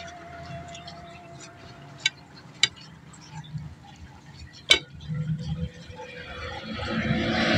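Quiet mealtime with three sharp clinks of dishes, the last and loudest about two-thirds of the way through. A faint steady tone stops about two seconds in, and near the end the noise of a passing vehicle's engine rises.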